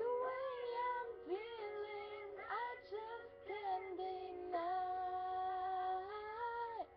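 A female voice singing a melody with slides between notes over steady held instrumental accompaniment, ending on a long held note of about two seconds that stops just before the end.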